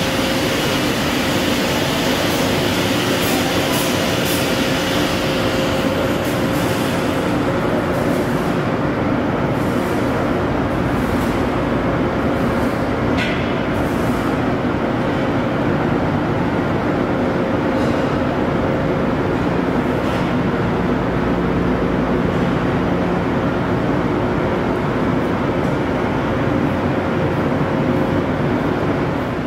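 Steady drone of running machinery: an even hum with a few held tones, and a few light clicks.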